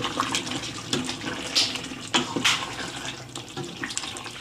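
A spoon stirring thick, creamy spinach-and-coriander chicken gravy in a pan: a wet, noisy swishing with a few sharper clicks of the spoon against the pan.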